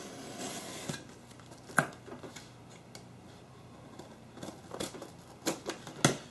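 Utility knife slicing the packing tape on a cardboard box, with cardboard flaps rustling: scraping with scattered sharp clicks, one about two seconds in and a quicker, louder run of clicks and knocks near the end.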